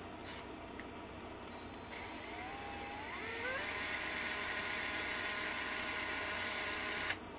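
Battery-powered DeWalt cordless screwdriver spinning up with a rising whine about two seconds in, then running steadily while backing out a chassis screw, and stopping suddenly near the end.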